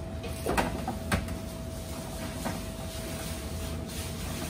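Metal baking trays being slid onto the steel rack rails of a baking cabinet, with two sharp metallic clacks about half a second and a second in and a lighter knock a little later. A steady machine hum runs underneath.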